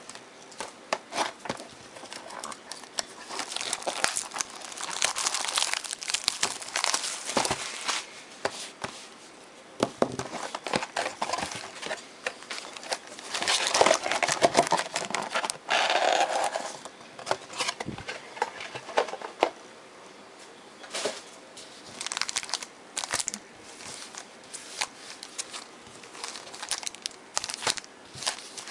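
Crinkling and tearing of trading card pack wrappers and packaging as a sealed box of football card packs is opened, irregular crackles with louder bursts of tearing, strongest past the middle.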